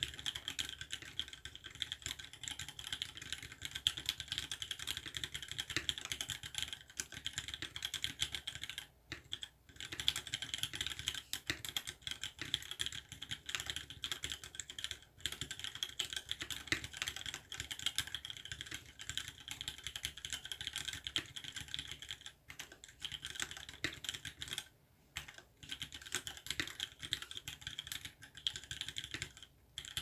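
Fast, continuous typing on a Duck Orion V2 mechanical keyboard with lubed Cherry MX Vintage Black linear switches, 55 g springs and an FR-4 plate. The keys clack in a dense stream, with a few short pauses.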